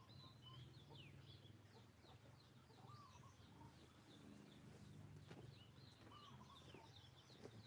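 Faint birds chirping and twittering in quick repeated short calls, over a low steady hum.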